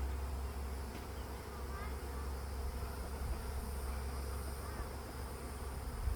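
Honeybees from an opened hive buzzing in a steady, massed hum, over a low rumble.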